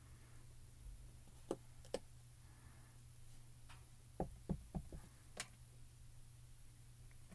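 Light plastic clicks and taps as small square ink pads and a clear acrylic stamp block are handled and set down on a craft mat: two about a second and a half in, a quick run of four around four seconds in, then one more.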